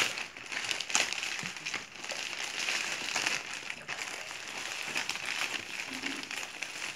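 Plastic courier mailer bag being torn open and crumpled by hand, with the plastic-wrapped punching bag pulled out of it: a continuous crinkly rustle with sharp crackles, the loudest snaps at the very start and about a second in.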